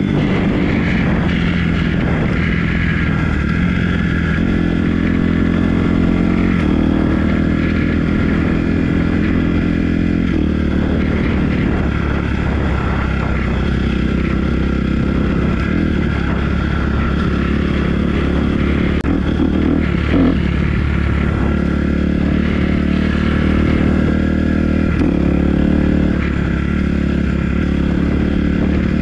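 Dirt bike engine running at a fairly steady cruising speed, heard from the rider's seat while riding along a grass trail.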